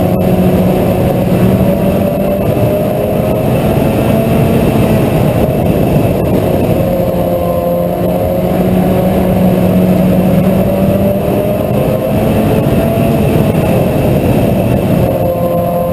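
Mini stock race car engine running at a steady, fairly constant speed, its pitch gently rising and falling.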